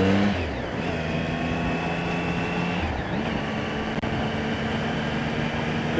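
2008 Triumph Speed Triple's three-cylinder engine running steadily at low revs while riding, with road and wind noise. About halfway through, the engine note briefly breaks and picks up again slightly higher.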